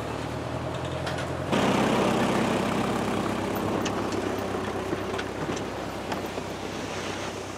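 Small red farm tractor's engine running steadily as it tows a wooden cargo sledge over snow. About a second and a half in the sound jumps suddenly louder and rougher, with a few faint clicks and knocks.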